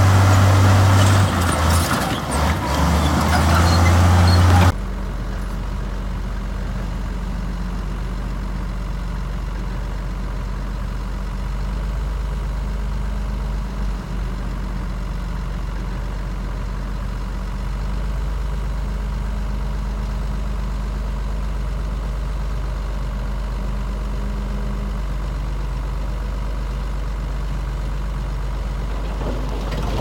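Heavy diesel earth-moving machinery engine running hard and loud with some clanks for the first few seconds, then a sudden change to a quieter, steady low engine sound that carries on.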